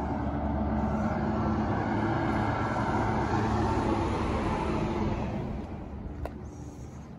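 A road vehicle passing, its steady noise fading away after about five seconds.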